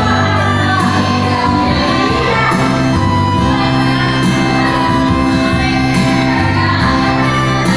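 A live band playing a worship song with singing over it: a strong, steady bass and sustained chords.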